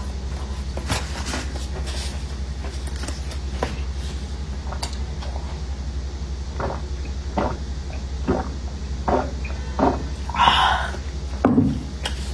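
Close-miked eating sounds: bites and chewing in a run of short, evenly spaced sounds during the second half, over a steady low hum.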